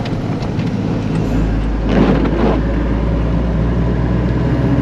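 Vehicle driving on a wet road, a steady low rumble of engine and tyres heard from inside the cab, with a brief louder rush about two seconds in.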